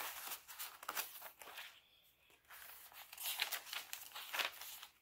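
Paper rustling and crinkling as junk journal pages are turned and a small paper bag is handled, in a run of short crackly rustles with a brief lull about two seconds in.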